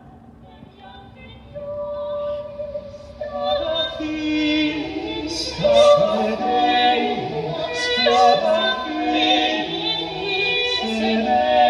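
A song with a woman singing over instrumental backing. It starts faint, grows louder about a second and a half in, and is playing loudly from about three seconds in.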